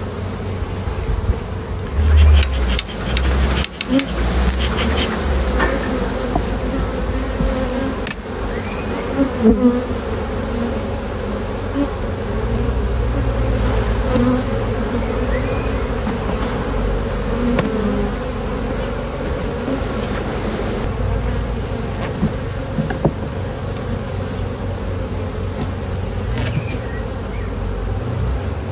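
Honeybees from an open hive buzzing, a steady hum, with a few short knocks, the loudest about two seconds in and near ten seconds.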